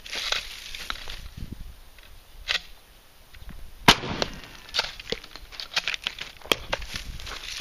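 A single loud 12-gauge pump shotgun blast about four seconds in, firing double-aught buckshot, among several fainter sharp pops and clicks.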